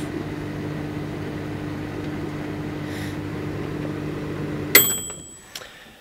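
Dial-timer microwave oven running with a steady hum. Nearly five seconds in, its timer bell dings once and rings briefly as the hum stops, ending the heating cycle.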